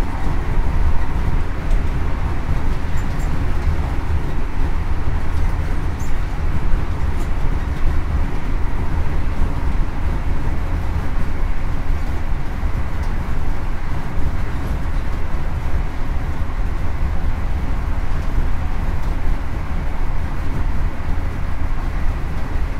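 High Speed Train (InterCity 125) under way, a steady deep rumble from its Class 43 power car's Paxman VP185 V12 diesel mixed with running noise of the wheels on the rails. A few faint steady tones sit above the rumble.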